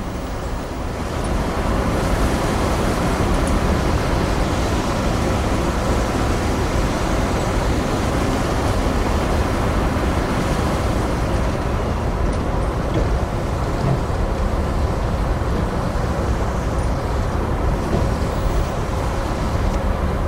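A pilot boat's engine running under way alongside a moving container ship, with water rushing and churning between the two hulls: a steady low rumble under a constant rushing noise that swells slightly about two seconds in.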